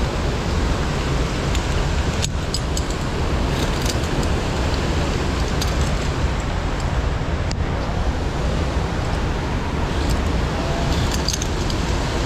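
Steady rushing of the mountain stream through the gorge, with a few faint clicks about 2, 7.5 and 11 seconds in.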